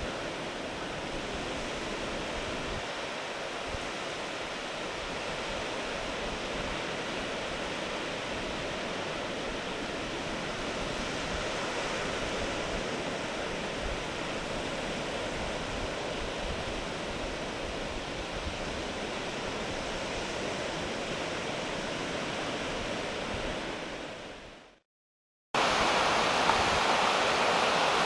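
Steady rushing of waves washing on a rocky shore, with no bird calls. It fades out near the end and, after a second's gap, comes back louder.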